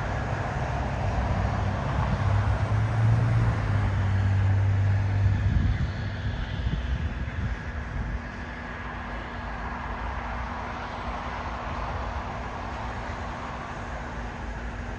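Jet airliner engines rumbling across an airfield: a low rumble that is strongest for the first six seconds or so, then eases to a quieter steady noise, with a faint steady hum underneath.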